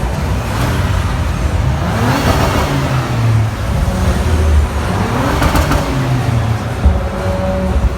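Audi sports car engine revved twice in quick blips over a steady low idle, each rev rising and falling in pitch within about a second; the second rev ends in a burst of sharp exhaust crackle.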